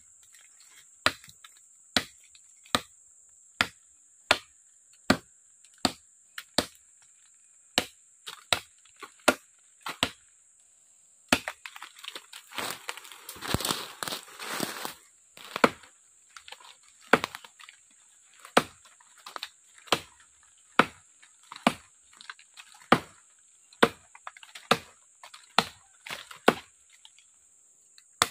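A short, heavy parang (machete) chopping into the wood of a tree trunk: steady, sharp blows a little over one a second, with a break partway through filled by a few seconds of rustling, crackling noise before the chopping starts again.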